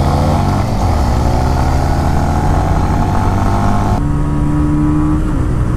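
Honda CB350 RS and TVS Ronin 225 single-cylinder motorcycle engines at full throttle in a drag race, heard from onboard with heavy wind rush. The engine note climbs steadily, then about four seconds in it cuts to the other bike running at a steadier pitch.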